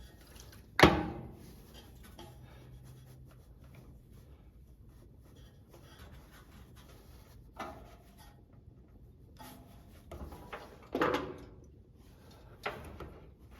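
Handling noise from working on a heater's fuel nozzle: a sharp knock about a second in, then light scraping and small clicks as a pick is worked around a stuck rubber hose on its fitting, with a few more knocks in the second half.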